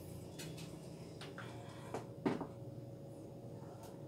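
A few light knocks of a high-heeled sandal against a terrazzo floor as a foot slips out of it, the loudest about two and a half seconds in, over a faint steady hum.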